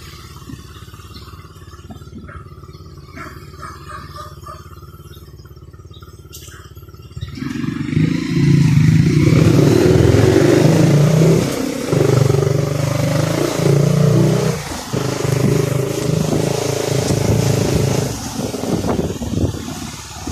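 Motorcycle engine running while riding along a street: low and fairly quiet at first, then much louder from about seven seconds in, its pitch shifting in steps, with a rushing noise over it.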